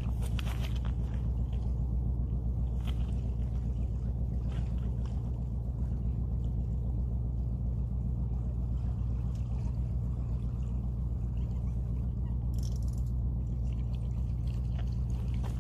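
Steady low rumble, with a few faint clicks and rustles.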